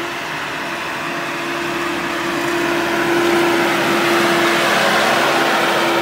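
Caterpillar backhoe loader's diesel engine running as the machine digs, with a steady mid-pitched whine over a dense rushing noise, a little louder from about two seconds in.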